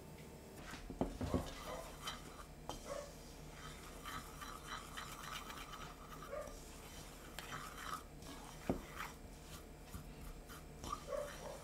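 Wooden chopsticks stirring dry flour and grated cheese in a ceramic bowl: a soft, scratchy rustling with a few sharp taps against the bowl, the loudest about a second in.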